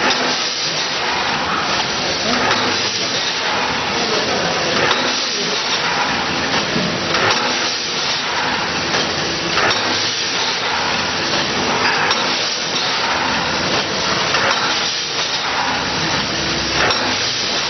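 Vertical form-fill-seal packaging machine running through its bagging cycle: a steady mechanical din with clunks and hisses that come in pairs about every two and a half seconds, one pair per bag formed, sealed and dropped.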